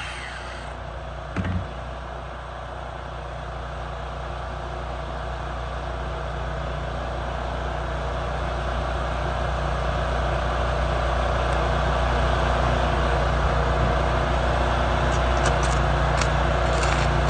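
Engine of a truck-mounted engine-drive welder running steadily, its level slowly climbing. A welding arc's hiss cuts off in the first second, a brief knock comes about a second and a half in, and a few faint crackles come near the end.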